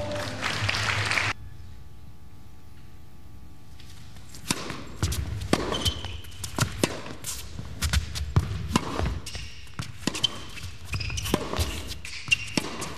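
A tennis rally on an indoor court: sharp racket hits and ball bounces, a few to the second, starting about four and a half seconds in after a short stretch of quiet.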